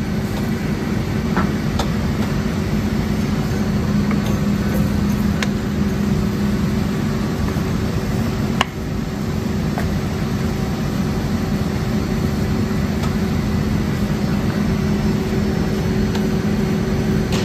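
Hydraulic power unit of a Cosen bandsaw running with a steady hum. A few light clicks and one short knock about nine seconds in come from the saw's blade-cover doors and parts being handled.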